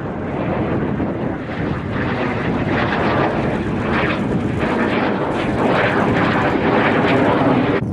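Fighter jet flying overhead: a loud, steady rushing roar of its engine that swells slightly toward the end and cuts off suddenly.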